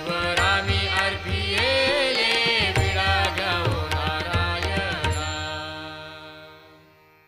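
Devotional bhajan: singing over sustained instrumental notes with light percussion. About five seconds in the performance stops and the held notes die away.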